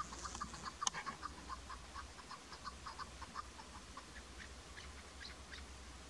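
Chukar partridge calling: a fast run of short clucking notes, about four or five a second, that thins out to a few scattered higher notes after about four seconds. A single sharp click about a second in is the loudest sound.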